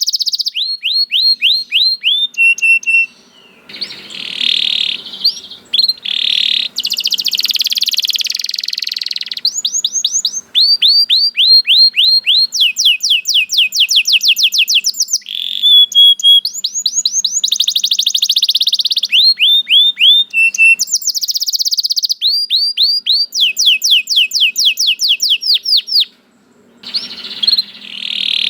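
Domestic canary singing a long, continuous song of rapid trills: fast runs of repeated falling notes, switching every second or two between phrases and a few held notes, with two brief pauses.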